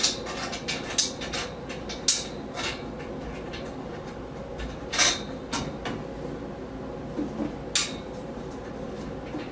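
Metal shelf parts and hardware of a flat-pack bathroom rack clinking and knocking as they are handled and lined up: a quick run of light clicks over the first few seconds, then a few sharper clanks, one about five seconds in and one near the end.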